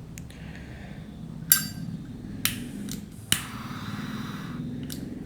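Zippo lighter clicking sharply three times, about a second apart. After the third click the butane torch insert hisses for about a second, and the speaker has said its gas is low.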